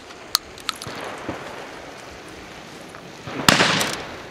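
A shotgun shot from another shooter on the trap line about three and a half seconds in, a sharp report with a short echoing tail. Before it come a few light clicks.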